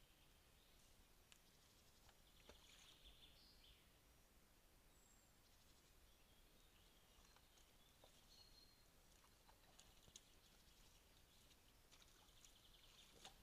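Near silence: faint outdoor forest ambience, with scattered faint high-pitched chirps and trills and a few soft clicks.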